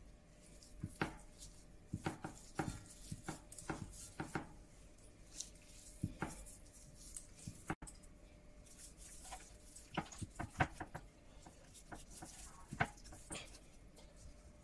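Hands patting and rubbing dry seasoning into raw chicken on a wooden chopping board: soft, irregular wet slaps and taps, a few of them sharper.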